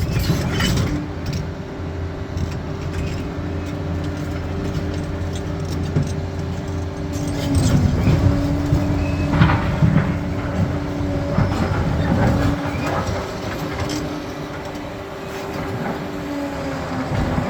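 Crawler bulldozer working: its diesel engine runs steadily under load, with the clatter of its steel tracks and the scrape of rock. The engine note sags briefly about eight seconds in.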